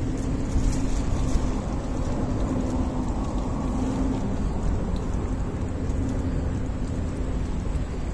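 A cat lapping water from a bowl, with faint small wet clicks mostly in the first second or so, over a steady low rumble.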